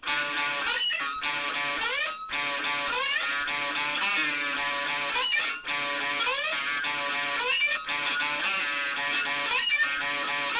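Lowebow Cat diddley bow played through a 1957 Fender Champ amp with an MXR Distortion Plus, a distorted blues riff that starts abruptly. The pitch slides up into notes again and again, with short breaks between phrases.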